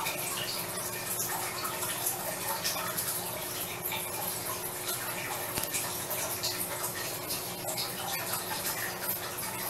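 Steady hissing background noise with a faint, steady hum underneath.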